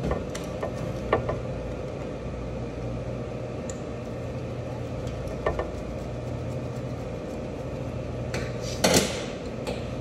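A flathead screwdriver unscrewing the ground screw in a Robot Coupe R2 food processor base: a few light metal clicks, and a louder clatter of metal near the end, over a steady low hum.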